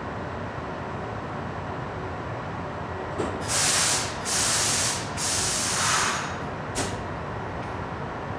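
Compressed air hissing from an R62A subway car's air brake system in three loud bursts between about three and six seconds in, then a short burst near the end. A steady background hum of the car runs underneath.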